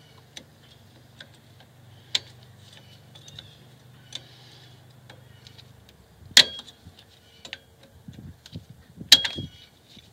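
Screwdriver clicking and scraping against rear drum brake hardware while prying at the horseshoe clip on the parking brake shoe. Scattered light clicks, with sharp ringing metal clinks about two, six and nine seconds in.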